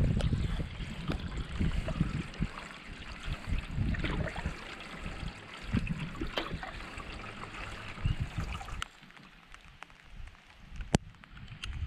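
Canoe paddling in the rain: paddle strokes and water splashing and trickling along the hull, with irregular low rumbles. About nine seconds in it drops suddenly to quieter lapping water with a few sharp drips.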